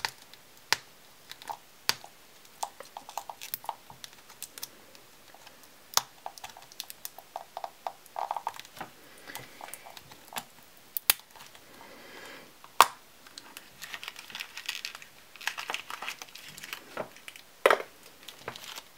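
Fingernails clicking and picking at a taped plastic gashapon capsule as it is pried open: irregular sharp clicks, with plastic wrapping crinkling in short stretches, mostly near the end.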